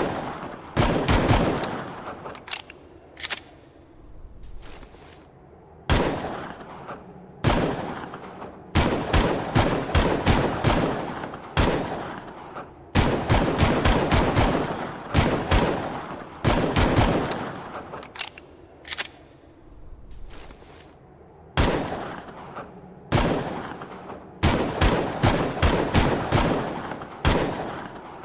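Gunshot sound effect of an AMT Longslide .45 pistol: strings of rapid shots and single shots, each followed by an echoing tail that fades between volleys.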